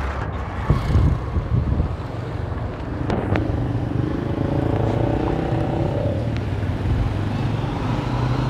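A motor vehicle engine running steadily, with a low rumble, in outdoor street noise.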